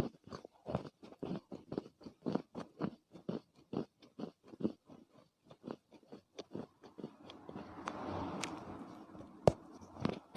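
Chinese loess (clay earth) being crunched: a quick run of soft crunches, two or three a second. It turns to a grainier, continuous crumbling about seven seconds in, with two sharp cracks near the end.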